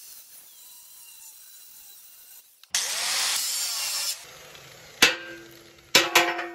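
Angle grinder cutting through a weld on a steel air compressor tank's bracket: a quieter steady hiss for the first two seconds, then a loud harsh grinding for about a second and a half before it dies away. Hammer blows on the steel tank follow, one and then a quick run of three, each ringing after the strike.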